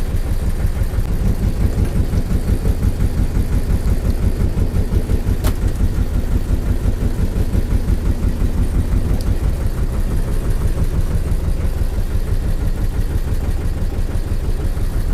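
A fishing boat's engine running steadily, with a fast, even low pulse. A single sharp click comes about five and a half seconds in.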